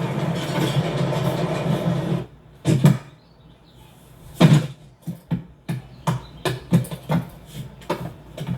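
Door-vault rail machinery running with a steady hum that cuts off about two seconds in, followed by a couple of heavy clunks and then an irregular run of clattering knocks and clicks, like doors and metal fittings banging along the rails.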